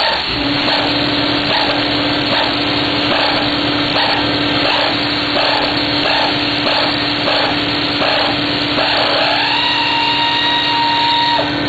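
A small power tool's motor running steadily, starting just after the start and holding one even pitch throughout.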